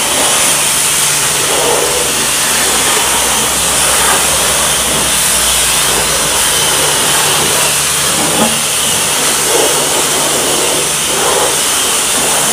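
High-pressure washer jet spraying water over a car's body, a loud steady hiss with a low hum under it: the pre-wash rinse that knocks dust and grit off before foam is applied.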